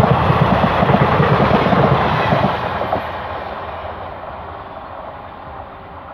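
A passenger express train's coaches roll past with a loud clatter of wheels on rail until about two and a half seconds in, when the last coach clears. The rumble then fades steadily as the train pulls away.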